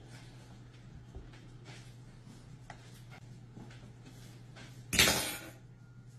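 Quiet kitchen room tone with a steady low hum and a few faint clicks, then a sudden loud bang about five seconds in.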